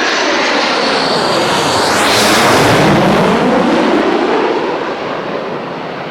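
Boeing 727 making a low pass on its three Pratt & Whitney turbofans: loud jet noise that swells to its peak about two to three seconds in, the pitch sliding down as it goes past, then easing off.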